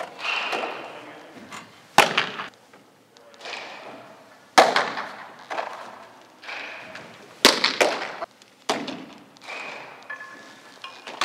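Baseballs smacking into leather gloves, several sharp pops a couple of seconds apart, each ringing on in the echo of a large indoor hall.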